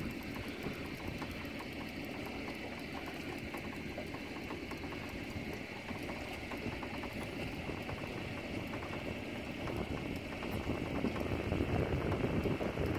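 Steady low rumble and hiss of a small boat on choppy open water, growing a little louder near the end.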